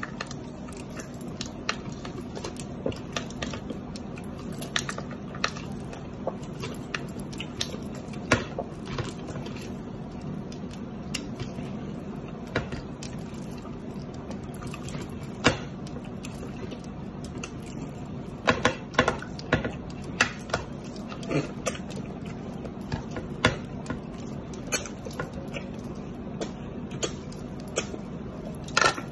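Close, wet mouth sounds of someone eating ripe mango slices fast: irregular sharp smacks and sucking clicks, thickest about two-thirds of the way through, over a steady low hum.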